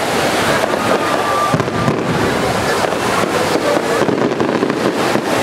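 Aerial firework shells bursting in a rapid run of bangs and crackles, thickest from about a second and a half in.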